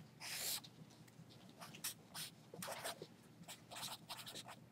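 Felt-tip marker writing on paper: a string of short, faint scratchy strokes, with a longer stroke just after the start, as lines, letters and numbers are drawn.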